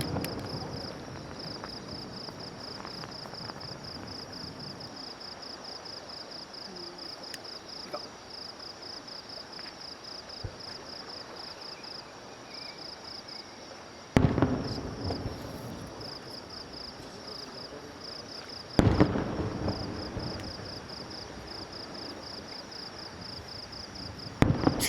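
Aerial fireworks shells bursting: three sudden loud bangs about 14, 19 and 24 seconds in, each trailing off in a fading rumble, with the tail of an earlier burst dying away at the start.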